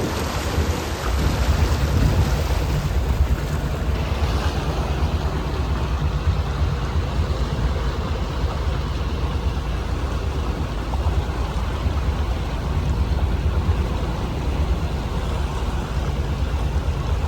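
A charter fishing boat's engine running at low speed, a steady low rumble with an even hiss of water and wind.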